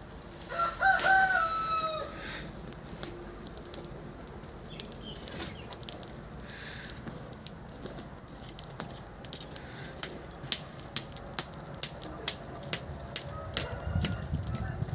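A rooster crows once near the start. A rice-straw fire singeing a goat carcass crackles and pops throughout, the pops growing dense in the second half.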